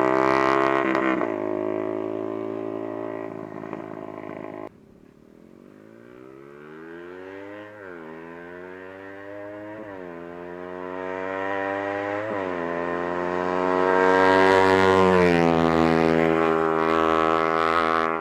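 Yamaha Sniper 150's single-cylinder four-stroke engine revving through a Proliner TR1 aftermarket exhaust. The revs sink from high and drop off abruptly about five seconds in, then climb again with three quick throttle blips to a loud peak about fifteen seconds in before easing back.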